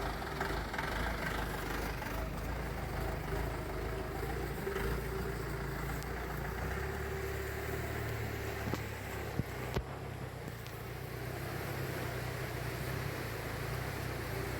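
Off-road jeep's engine running at low revs as it creeps slowly down a steep track, held back and driven carefully. Two or three sharp knocks come about nine to ten seconds in.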